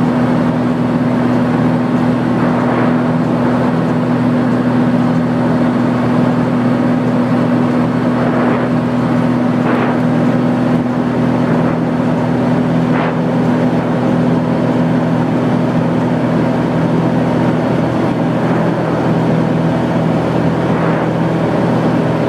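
Single-engine light aircraft's engine and propeller droning steadily, heard inside the cabin. The drone's tone shifts slightly near the end.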